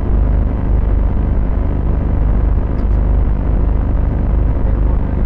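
A steady, loud low rumble with a constant hum running under it; two faint ticks sound about three seconds in.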